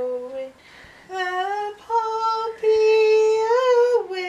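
A woman singing a few long held notes with short breaks between them, the notes swelling and wavering slightly in pitch.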